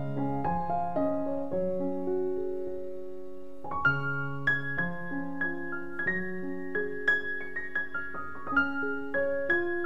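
Background piano music: single notes struck over held chords.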